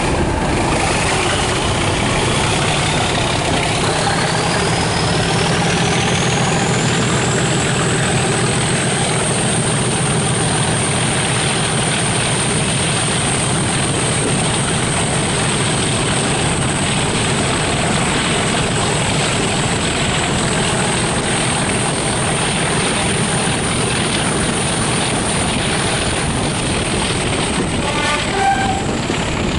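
Class 37 diesel locomotive 37714's English Electric V12 engine working hard, heard from the open window of the coach behind it, its turbocharger whistle rising over the first several seconds to a high steady whine above the engine and wheel noise. A short horn blast sounds near the end.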